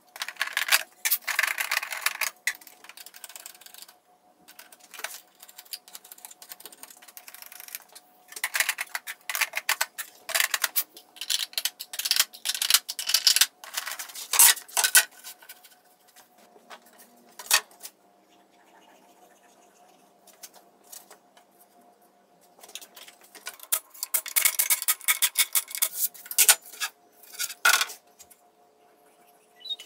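Small plastic storage bins clattering and knocking against each other and the bench as they are lifted and stacked, in three bursts of rattling separated by quieter stretches.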